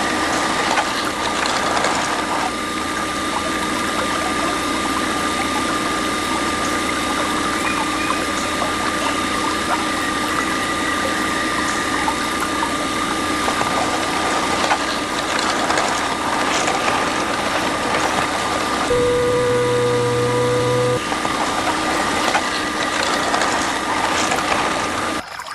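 Small DC motor of a homemade mini water pump running steadily, with a constant high whine over the splash and rush of moving water. It drops out abruptly just before the end.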